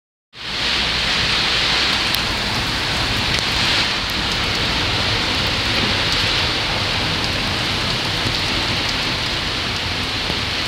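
Rain falling steadily, an even hiss of drops on the street and surrounding surfaces.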